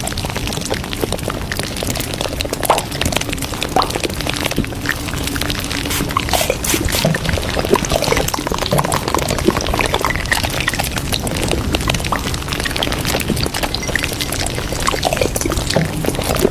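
Steady running, pouring water full of small splashes and crackles, with music underneath.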